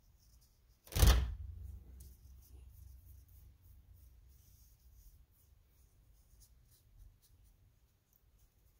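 A single loud thump about a second in, its low rumble dying away over the next few seconds, then only faint scattered light ticks.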